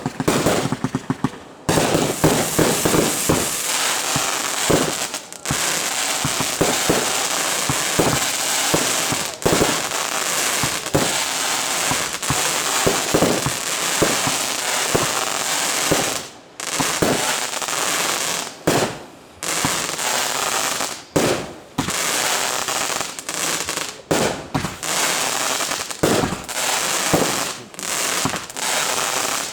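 Fireworks display: a rapid, near-continuous string of bursts and dense crackling, dropping away briefly a few times.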